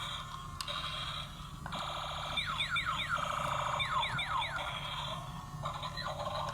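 Electronic sound effects: bursts of buzzy sound, with a run of quick falling whistles in the middle.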